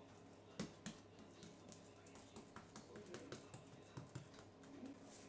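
Faint taps and light knocks of hands folding and pressing a sheet of yeast dough on a countertop, with sharper clicks about half a second in and again around four seconds.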